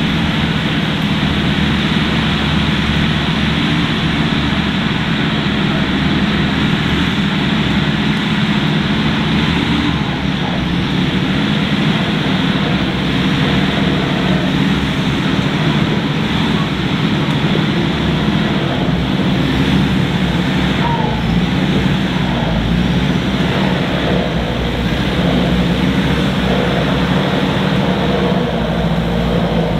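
Off-road 4x4's engine running steadily with little change in pitch, with a continuous noise haze over it.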